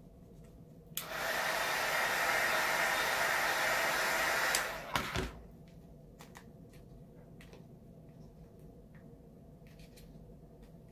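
Heat gun blowing steadily for about three and a half seconds, starting about a second in, then cut off. A single knock follows, then a few faint clicks.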